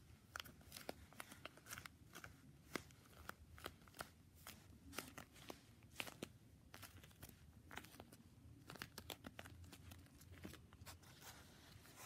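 Faint, irregular crackles and clicks of a squishy rubber stress ball being squeezed and kneaded by hand.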